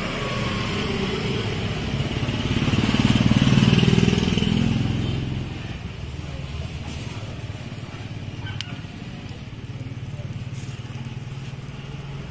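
A motor vehicle's engine, most likely a motorcycle, passing close by. It is loudest about three to four seconds in, then a steady low engine hum carries on.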